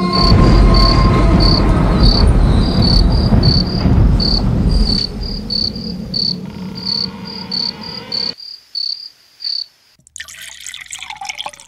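Crickets chirping in a quick, uneven series of short high chirps over a loud low rumble that stops at about eight seconds; near the end, liquid being poured from a bottle into a glass.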